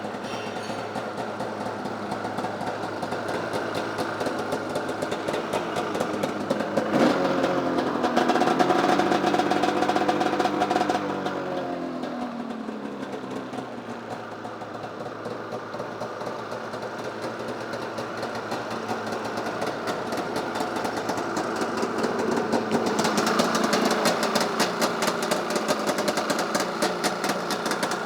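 2004 Arctic Cat Sabercat 700 EFI snowmobile's two-cylinder two-stroke engine running. It is revved sharply about seven seconds in, held for a few seconds, then falls back, and rises again more gradually in the second half.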